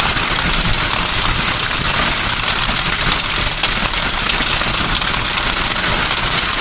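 Steady rain falling on a surface: a dense, even hiss with fine pattering.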